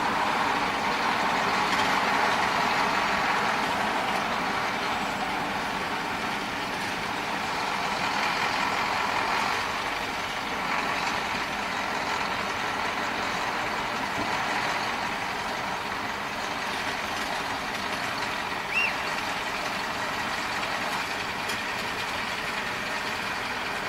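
Truck engine running steadily, slightly louder in the first few seconds, with one short high squeak about three-quarters of the way through.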